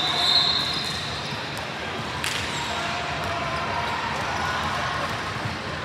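Basketball game sound in a gym: a steady din of play and crowd voices, with a short high squeak near the start and a sharp knock about two seconds in.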